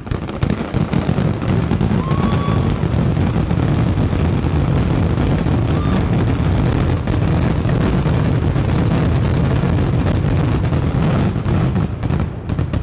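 Fireworks finale: a dense, continuous barrage of bangs and crackling that thins to a few separate bangs near the end.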